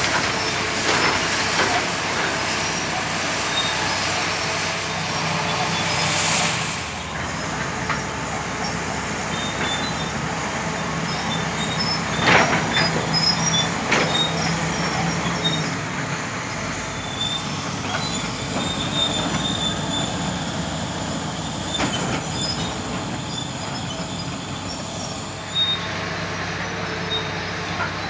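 Caterpillar D9G crawler dozer working under load: the diesel engine runs steadily while the steel tracks squeal and clank as it pushes earth, with a couple of sharp clanks about halfway through.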